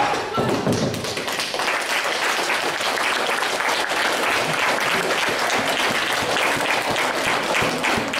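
A small group clapping steadily, with a few voices mixed in.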